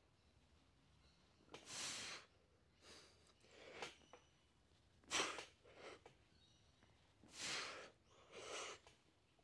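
A weightlifter breathing hard through a heavy set of dumbbell bench press reps: short, sharp hissing breaths, about one every one to two seconds.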